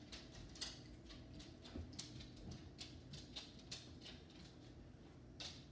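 Near silence: low room tone with faint, scattered small clicks.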